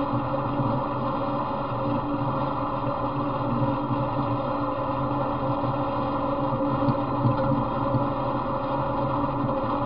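Off-road riding mower's engine running steadily as the mower drives along a trail.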